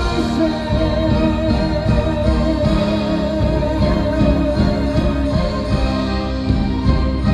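Instrumental music played loud through a concert sound system: a band passage with a held, wavering melody line and no singing.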